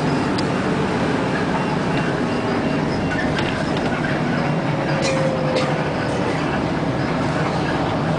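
Steady rumbling ride noise of a moving vehicle, with scattered rattles and clicks and a short thin squeal about four and a half seconds in.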